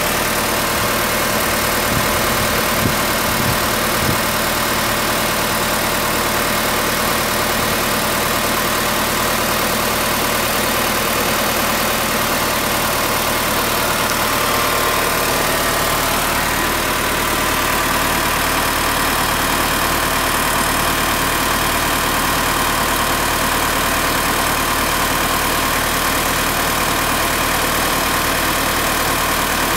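2003 Mitsubishi Triton MK's 2.4-litre four-cylinder petrol engine idling steadily with the bonnet open.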